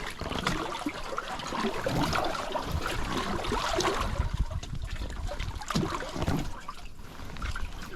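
River water splashing and trickling against a small inflatable raft, with an uneven rumble underneath.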